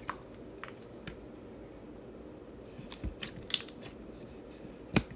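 Glossy pink slime being kneaded and pressed by hand, giving off short sharp clicks and pops: a few early on, a quick cluster about three seconds in, and the loudest pop near the end.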